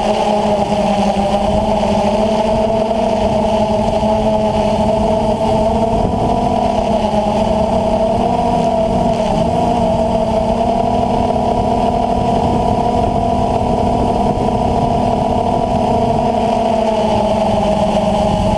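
DJI Phantom FC40 quadcopter's brushless motors and DJI 9450 propellers running with a steady whine, heard from the GoPro mounted on the aircraft, the pitch wavering slightly over a low rumble.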